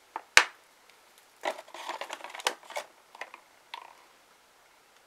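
Nail polish bottles being handled on a tabletop: a sharp knock about half a second in, then a cluster of small clicks and rattles, and a couple more clicks near the end.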